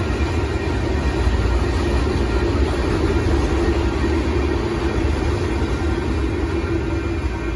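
Union Pacific freight train of loaded sand hopper cars rolling past, a steady rumble of wheels on rail.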